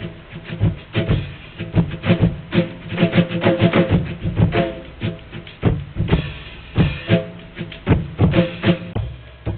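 Music with drums and percussion: uneven sharp hits over a bass line, with a short pitched figure repeating.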